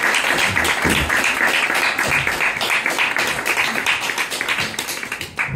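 Crowd applauding, the clapping tapering off near the end.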